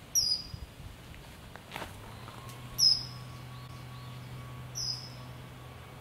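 Common kingfisher giving three short, shrill, high-pitched calls about two seconds apart, each dropping slightly in pitch at its tail.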